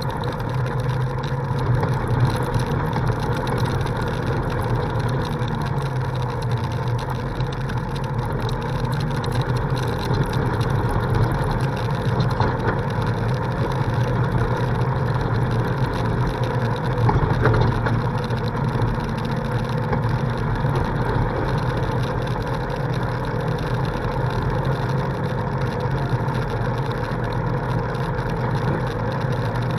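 Polaris RZR side-by-side's engine running at a steady pace as it drives a dirt road, a constant low hum with the rattle and rumble of the ride. A brief louder bump comes a little past halfway.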